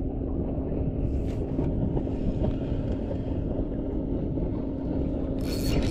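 Boat motor running steadily with one even hum, under wind buffeting the microphone. A short burst of hiss comes near the end.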